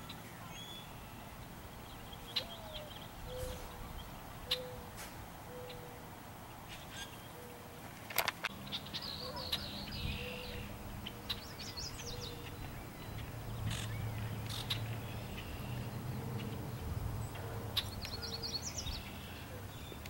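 Red-winged blackbirds singing a few short trilled songs over a mourning dove cooing, a slow series of low notes about once a second. A low steady hum joins about eight seconds in.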